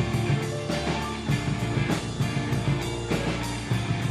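Live rock band playing an instrumental stretch of a song, with a drum kit keeping a steady beat under guitar.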